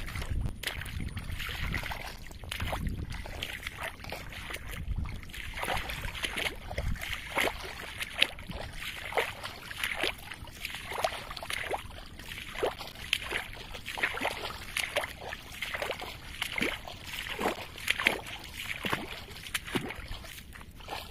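Irregular sloshing and splashing of water and mud, a series of uneven wet strokes, with a low rumble in the first second.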